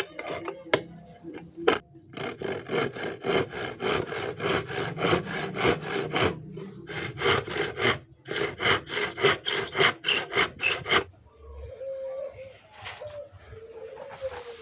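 Hand saw cutting wood in quick back-and-forth strokes, about three a second, stopping briefly twice and ending about three-quarters of the way through.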